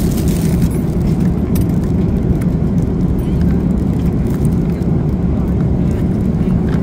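A vehicle in motion: a loud, steady low rumble with a few faint clicks.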